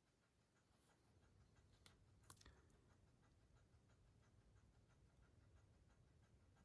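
Near silence, with two faint clicks about two seconds in, the sound of a plastic Blu-ray case being handled.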